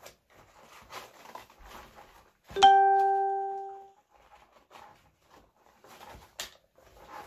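Light rustling and clicking from a sling bag and its strap being handled. About two and a half seconds in comes one sharp bell-like ding, the loudest sound, which rings for over a second as it fades.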